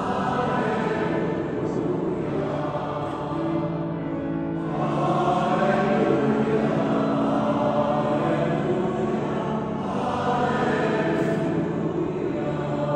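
Church hymn: voices singing in long sustained phrases over steady accompaniment.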